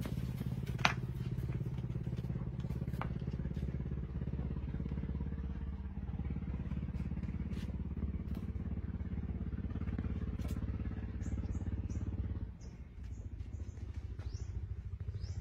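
A steady low mechanical hum, like a small engine running, that dips briefly about twelve seconds in. A sharp click comes about a second in, and short high chirps sound in the last few seconds.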